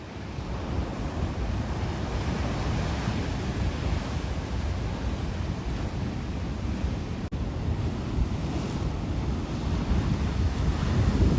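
Heavy ocean surf crashing in blizzard winds, with the gale buffeting the microphone in a dense low rumble. The sound cuts out for an instant about seven seconds in.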